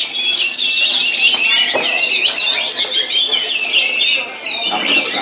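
Many caged contest songbirds singing at once: a dense, overlapping chorus of high chirps, trills and whistles.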